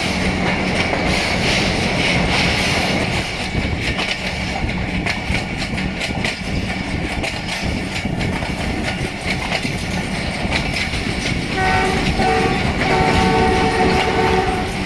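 Moving train: steady rumble with wheels clicking over rail joints. About twelve seconds in, the ZCU-20 diesel locomotive's multi-tone air horn sounds, a short blast and then a longer one.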